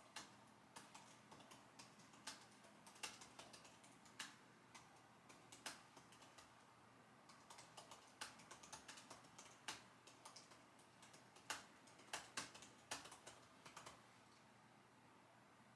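Typing on a computer keyboard: a quick, irregular run of key clicks with a few louder strokes, stopping about two seconds before the end.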